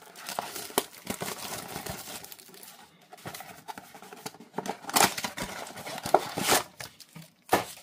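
Plastic wrap being torn and crinkled off a cardboard trading-card blaster box, then the box's end flap pulled open. Steady rustling broken by several sharp snaps, the loudest about five seconds in and near the end.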